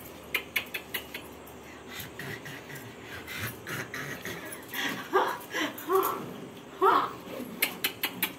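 A baby fussing with a few short whimpers that rise and fall, after a few sharp clicks near the start.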